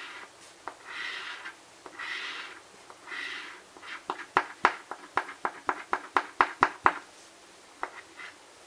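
A coin scratching the coating off an instant lottery scratch ticket. First come four separate scraping strokes about a second apart, then about three seconds of quick, short scrapes and clicks, several a second, which stop about seven seconds in.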